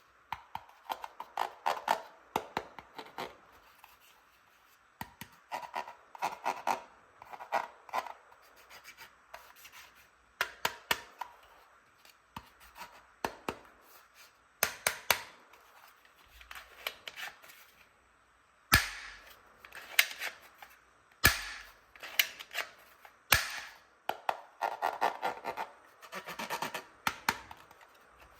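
Plastic toy gun parts being handled: rubbing, scraping and clicking in short clusters, with three sharp snaps about two seconds apart near the middle.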